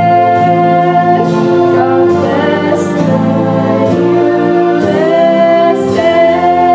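A girl singing a slow song in long held notes over a sustained keyboard accompaniment.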